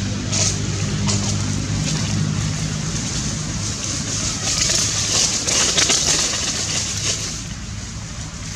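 Steady rushing outdoor noise, with a low engine hum in the first three seconds or so that then fades out.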